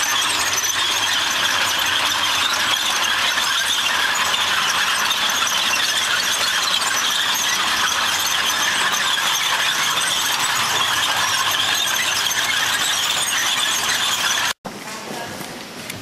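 Steel tracks of an upturned tank turning, squealing steadily. The sound cuts off abruptly about a second before the end.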